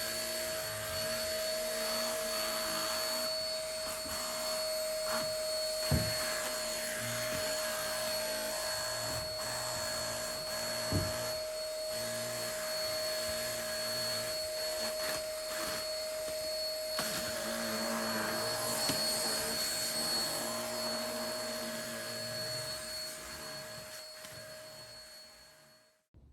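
Hitachi PKV-BK50P vacuum cleaner running steadily, its motor making a constant whine over the rush of suction, with two short knocks along the way. It dies away just before the end.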